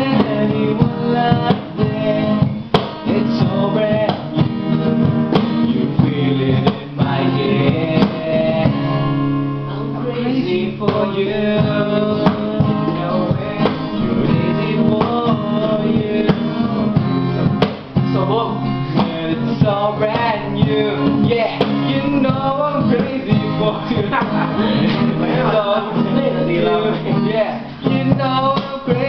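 Acoustic guitar strummed, with male voices singing along.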